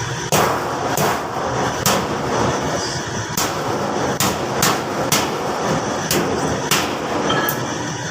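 About ten sharp metal knocks at irregular intervals, like a hammer striking during metalwork assembly, over a steady background noise.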